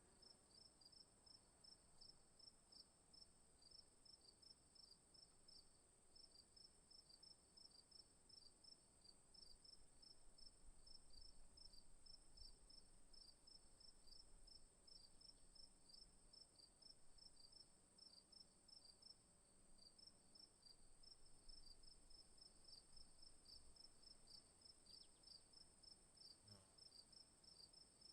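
Crickets chirping: a faint, steady high trill with a second layer of quick, evenly repeated chirps over it.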